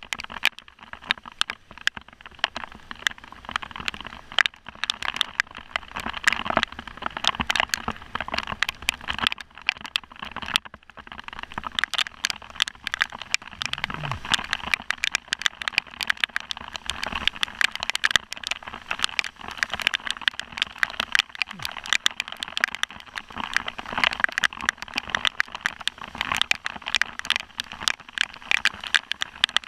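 Heavy rain pelting a car, a dense, irregular patter of hard drop impacts over a steady hiss.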